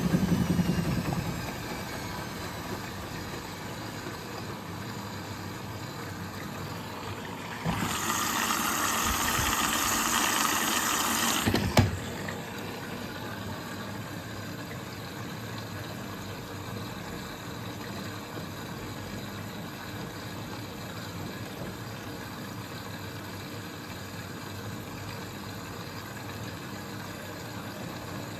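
Siemens Siwamat XS 1060 front-loading washing machine running through its wash cycle, the drum motor humming as the drum turns the wet laundry. The hum is louder for the first second or so, then steadies. About eight seconds in, a hiss comes in for a few seconds and ends with a sharp click.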